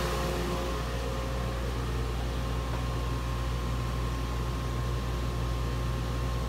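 Workshop dust collector running steadily just after switch-on: an even motor and fan hum with a faint steady whine above it.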